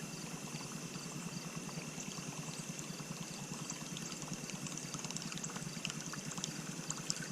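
Water lapping and trickling against the hull of a drifting jon boat, with many small irregular clicks and a faint steady high-pitched whine.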